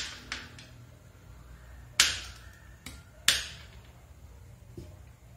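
Knife chopping whole almonds on a cutting board: a few sharp cracks as the blade cuts through a nut and strikes the board, spaced irregularly, the two loudest about two and three seconds in.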